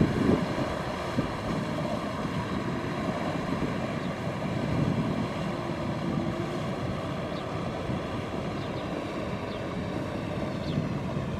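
Kubota M6040SU tractor's diesel engine running steadily under load as it drags a rotary tiller through deep mud. A few faint, short bird chirps come in over it in the second half.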